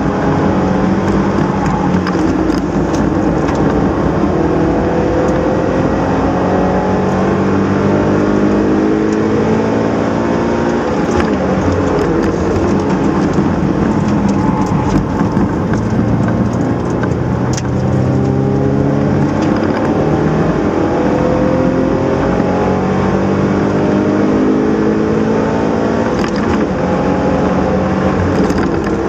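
Subaru BRZ's 2.0-litre flat-four engine pulling hard through the gears on a circuit lap. Its pitch climbs and drops back with each upshift. Twice, about eleven seconds in and again near the end, the pitch falls away as the car slows.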